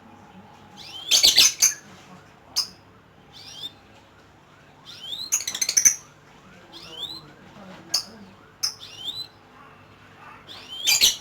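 Lovebird chattering: bursts of shrill rising chirps. Three loud, rapid runs come about a second in, near the middle and at the very end.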